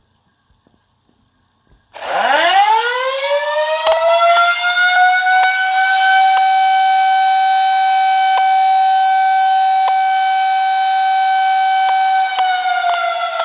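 Chicago Wolves hockey goal siren, a mechanical-style siren. It starts about two seconds in, winds up from a low growl to a steady high wail over about three seconds, holds that pitch, and begins winding down near the end.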